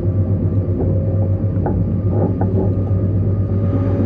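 Electric passenger train running: a steady low rumble with a faint steady whine. A few light clicks and knocks come around the middle.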